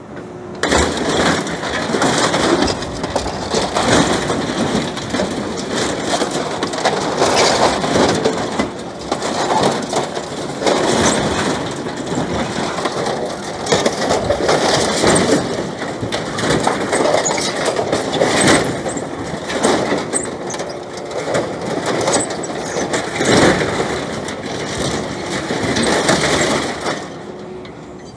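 Excavator working on scrap farm machinery: its diesel engine running under load while the grab crushes and tears the sheet-metal body of an old combine harvester, with continuous crunching and many sharp metal bangs and cracks.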